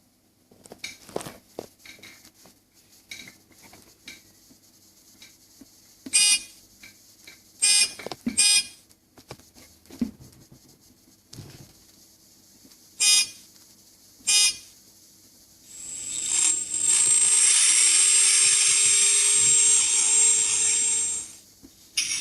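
Sound module in a 1/8 scale 1967 Shelby GT500 model car playing through its small speaker. It gives five short car-horn beeps, then a loud, hissy sound of about five seconds carrying a low tone that rises slightly. Soft clicks sound in between.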